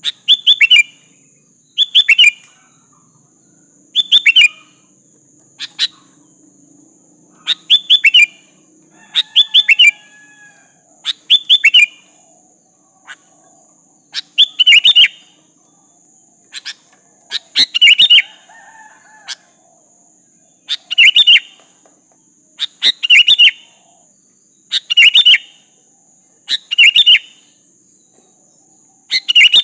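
Sooty-headed bulbul (kutilang) calling over and over, a short, bright burst of quick notes about every two seconds.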